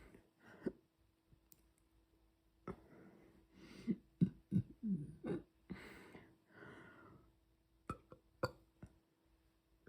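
A young woman burping, several short low burps in quick succession with breathy gulps of air between them, followed by two sharp clicks near the end.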